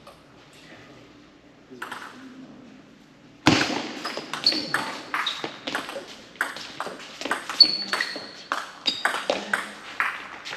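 Table tennis rally: the celluloid ball clicking sharply off paddles and table in quick alternation, about three hits a second. It starts suddenly about a third of the way in, after a quiet pause before the serve.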